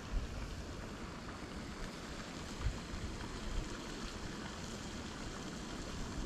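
Outdoor ambience by a pond: a steady hiss with wind rumbling on the microphone in uneven gusts.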